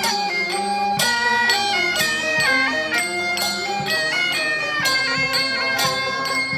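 Chinese traditional folk band music: a loud, reedy wind melody moving in steps over regular percussion strikes about once a second.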